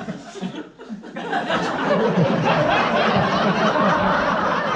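Theatre audience laughing, many voices at once, swelling loudly about a second in.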